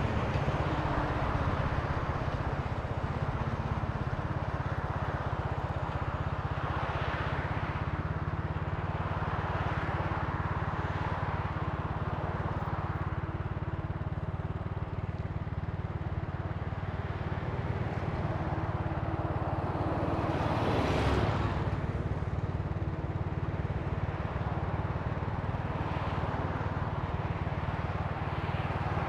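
Italika TC300 motorcycle engine running steadily at cruising speed, heard from the rider's seat with road and wind noise, with a brief louder swell about two-thirds of the way through.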